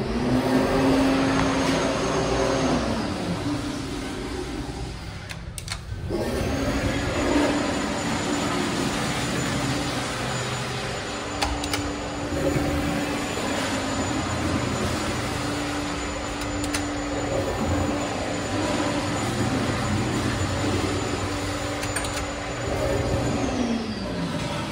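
Commercial wall-hung Kohler Kingston toilets flushing on their flush valves: a loud, steady rush of water with a low whine from the valve. There is a short break about five seconds in, and a thin high whistle runs through most of the rest, dropping away near the end.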